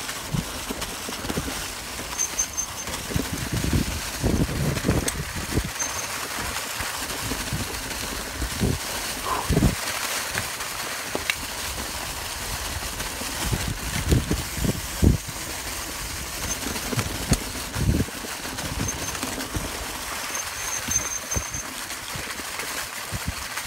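Mountain bike rolling fast downhill over a leaf-covered dirt trail: a steady rush of tyres through leaves and air, broken by irregular low thumps.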